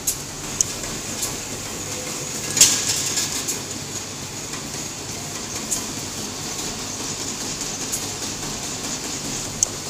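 Automatic corrugated carton folder gluer running: a steady mechanical hum from its belts and rollers, with sharp clacks every second or so and a short burst of clattering about two and a half seconds in.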